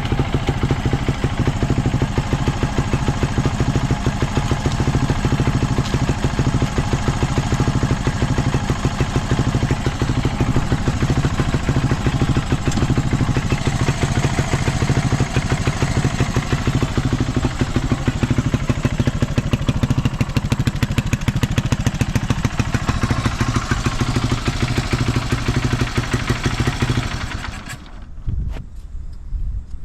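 Early Honda XL250S's air-cooled four-stroke single-cylinder engine idling with an even, steady beat, then shut off about 27 seconds in, leaving faint wind noise. It runs without abnormal noise after long storage.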